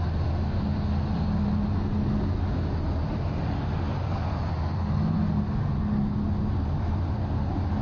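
Steady engine drone with a low hum, unchanging in level.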